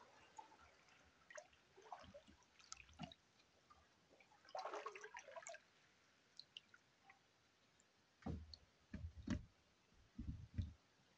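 Faint canoe paddling: water drips and trickles from the paddle, and a few soft low thumps come near the end.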